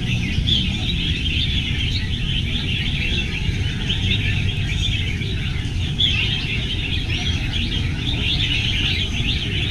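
Many red-whiskered bulbuls singing at once in a dense, overlapping chorus of quick chirps and warbles, over a steady low rumble.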